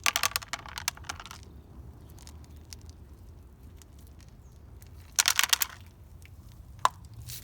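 A cat chewing dry food: a burst of quick crunches for about a second at the start, another short burst about five seconds in, and a single sharp click near the end.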